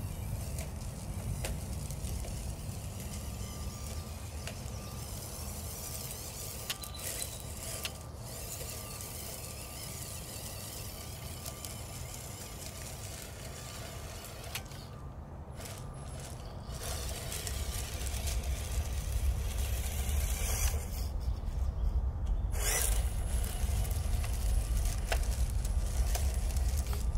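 Small electric RC crawler truck (FMS Toyota FJ45, 1/12 scale) driving over loose river rock: a faint motor whine and tyres clicking on the pebbles, over a low rumble that grows louder in the last third as the truck comes closer.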